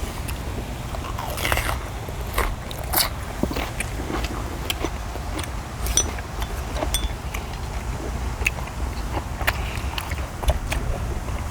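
People chewing and biting grilled beef tenderloin and mushrooms, with many short, irregular mouth clicks and smacks over a steady low hum.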